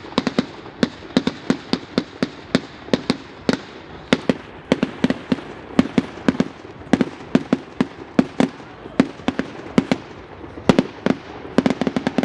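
Fireworks display going off: a rapid, irregular series of sharp bangs from exploding shells, several a second.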